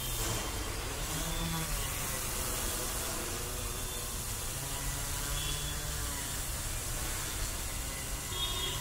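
Quadcopter drone's brushless motors and propellers (T-Motor Anti-Gravity 4006) in flight: a steady buzzing hum whose pitch drifts up and down as the motors change speed to hold altitude.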